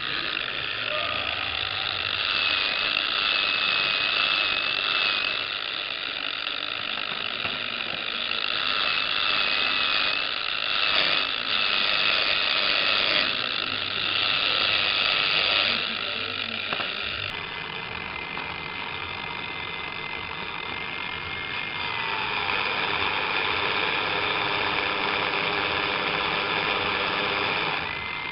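Chevrolet S10E electric pickup running, with a high steady whine from the drive that shifts in pitch about two-thirds of the way through and glides down shortly after.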